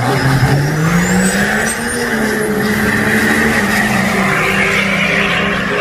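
Diesel drag-racing pickup launching off the line. The engine's revs climb over the first second or so, with a high whistle rising alongside, then hold high and steady as the truck pulls away down the strip.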